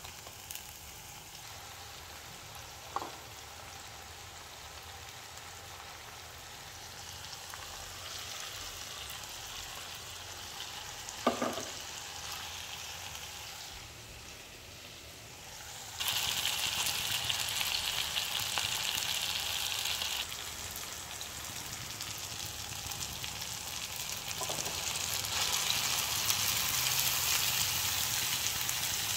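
Food sizzling as it fries in oil in a pan, a steady hiss that grows louder about halfway through. Two short clinks sound early on and about a third of the way in.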